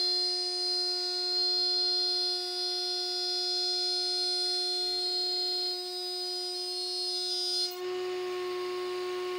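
Router spinning in a router table with a steady high-pitched whine while a thin wooden strip is fed past the bit. About eight seconds in the sound changes abruptly: some of the high overtones drop away and a hissy noise comes in.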